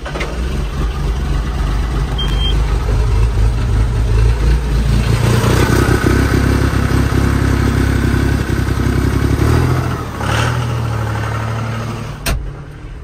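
Tractor diesel engine running with a low, steady drone, growing louder over the first few seconds, then easing down near the end, with a sharp click just before it drops. The engine is purring, running smoothly.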